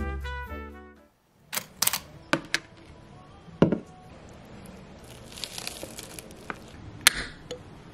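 Brass music stops about a second in. Then come a few sharp clicks and knocks from a plate and food being handled on a table, with a soft rustling stretch a little past halfway.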